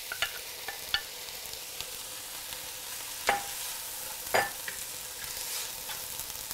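Onions, celery and carrots sizzling in olive oil in a hot pan, a steady hiss. A few sharp knocks of a utensil against the pan break through it, the two loudest about three and four seconds in, as the lentils are added and stirred.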